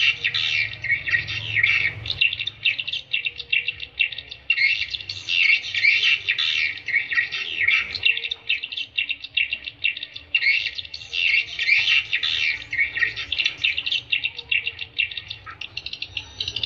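Edible-nest swiftlet calls used as a lure sound to draw swiftlets to a nesting house: a dense, unbroken stream of fast, high twittering chirps that swells louder every few seconds.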